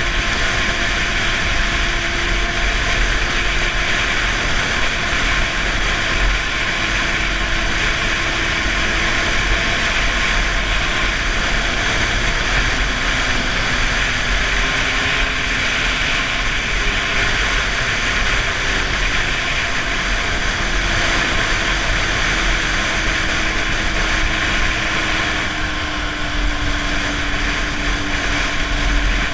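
Snowmobile engine running at a steady cruise under a continuous rush of wind and track noise, its note slowly wavering up and down.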